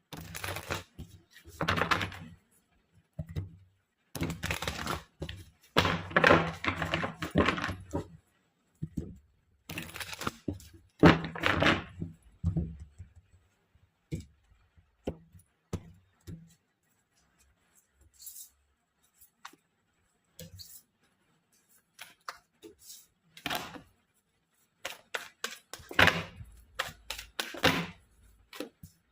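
Tarot cards being shuffled and handled on a table: irregular bursts of rustling and knocking with quiet gaps between, busiest in the first half and again near the end.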